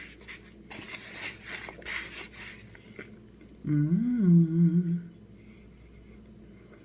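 Close-up crunching and chewing of a crisp, crunchy food, crackling for about two and a half seconds, followed about a second later by a single hummed "mmm" of enjoyment lasting just over a second.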